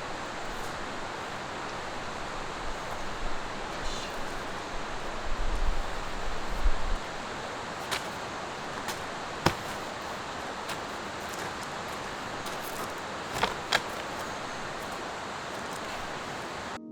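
Steady rush of a mountain stream flowing over rocks, with a few sharp clicks or knocks about eight, nine and thirteen seconds in.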